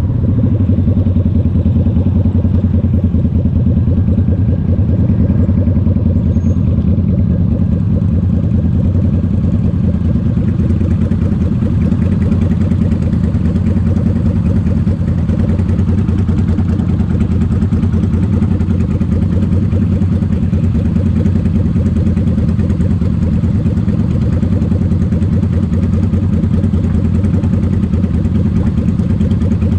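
Motorcycle engines idling with a steady low rumble, heard close up from the rider's own bike as it rolls to a stop and sits in traffic.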